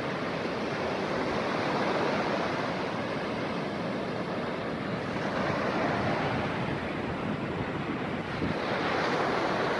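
Ocean surf breaking and washing up a sandy beach: a steady rush of waves that swells and eases a little.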